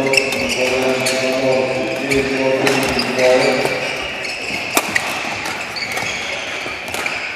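Badminton racquets striking a shuttlecock during a fast doubles rally: a string of sharp hits about a second apart, with voices and shoe squeaks on a hall court.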